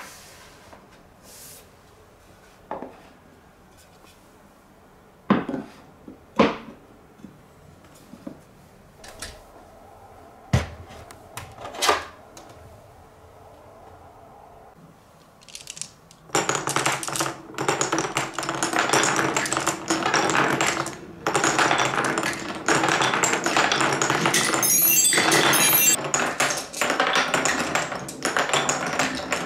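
Wooden blocks are set down on a table, a few sharp separate knocks. About halfway through, glass marbles start rolling and clacking continuously through a wooden marble run of Cuboro cube blocks and a Quadrilla spiral track.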